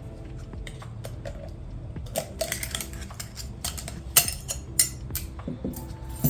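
Irregular metallic clicking and clinking of a 4L80E transmission's forward clutch pack being taken apart by hand: clutch plates, steels and the hub knocking against each other. The clicks get busier about two seconds in, and two sharper knocks come around four and five seconds in.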